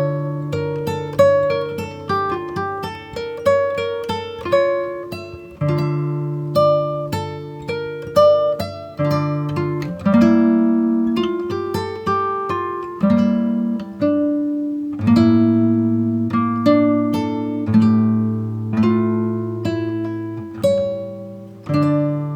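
Background music: a solo acoustic guitar playing plucked and strummed chords in a steady rhythm.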